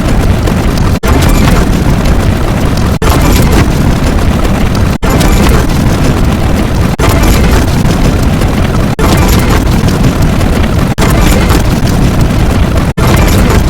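Very loud, heavily distorted explosion-like sound effect. It cuts out briefly and starts again about every two seconds.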